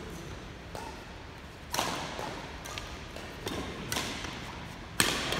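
Badminton rackets striking a shuttlecock in a rally: a few sharp, echoing cracks spaced a second or two apart, the loudest about two seconds in and near the end.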